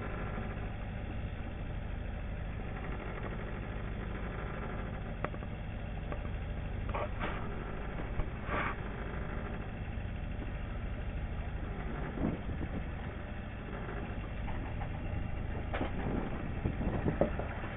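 Fishing cutter's engine running steadily at idle, a constant low hum. A few brief louder noises come through it, about halfway through and again near the end.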